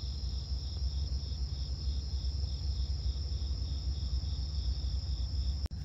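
Night insects chirring steadily: one high continuous trill with a second, lower trill pulsing about four times a second, over a low rumble. The sound breaks off sharply near the end.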